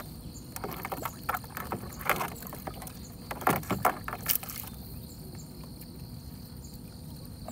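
Water splashing and dripping as a monofilament fishing net is hauled hand over hand out of the river into a small boat, with a run of short sharp splashes and knocks that stops about halfway through.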